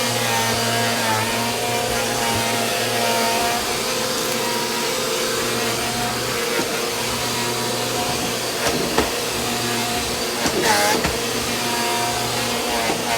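Vacuum cleaner running with a steady hum, with a few sharp knocks about two-thirds of the way through.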